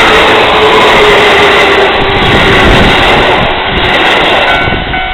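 Keisei 3600-series electric train passing close by over a level crossing: loud wheel and motor noise with many low thumps and a faint steady hum. The noise dies away near the end as the train clears, leaving the crossing's warning bell ringing in short, even beats, about two a second.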